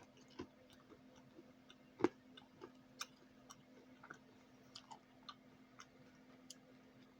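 A person chewing a mouthful of crunchy, candy-shelled jelly beans, with faint irregular crunches and clicks, the loudest about two seconds in, over a faint steady hum.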